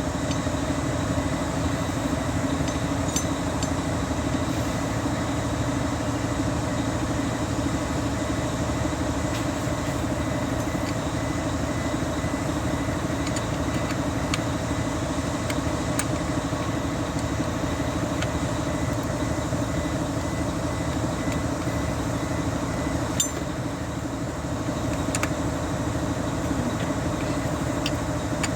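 A steady mechanical drone like an idling engine, unchanging throughout, with a few light, sharp metallic clicks scattered through it.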